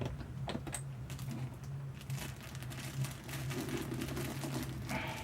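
Plastic packing material crinkling and rustling as it is handled, with scattered light clicks, over a steady low hum.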